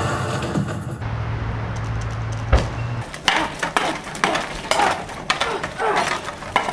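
Swords clashing in a staged sword fight: a quick run of sharp metallic clanks, about two a second, in the second half. Before them a steady low hum with a single sharp knock about two and a half seconds in.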